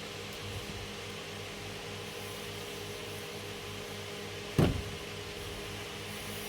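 Steady mechanical hum from a running machine, with one sharp knock about four and a half seconds in.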